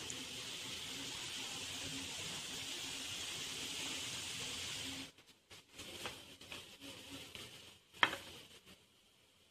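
Jalebi batter frying in hot oil in a pan: a steady sizzle that cuts off abruptly about five seconds in. After it, faint small handling sounds and one sharp clink of a spoon against the pan of sugar syrup near the end.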